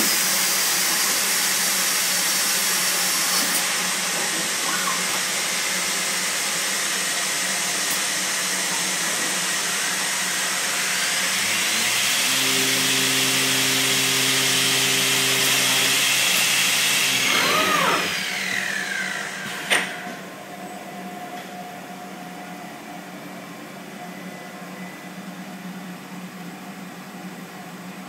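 Weeke BMP 195 CNC machining centre running: a loud steady whirring hiss, with a high whine over it for the first few seconds and a low hum joining partway through. About two-thirds of the way in the noise drops away in falling whines, a sharp click follows, and a quieter steady hum remains.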